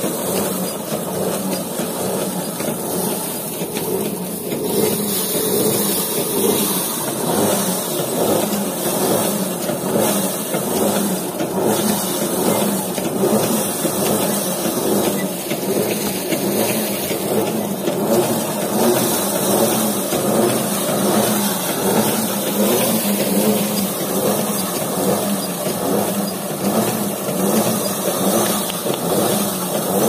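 Mini rice thresher running: its wire-loop drum spins with a steady mechanical hum while rice bundles are pressed onto it, the stalks thrashing against the wire teeth as the grain is stripped.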